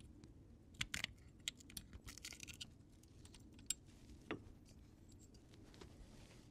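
Faint small clicks and scrapes of a screwdriver tip working inside a fuel pressure regulator housing, prying out the O-ring and strainer. The clicks are scattered, with a cluster about a second in, a short scrape around two seconds and single ticks near four seconds.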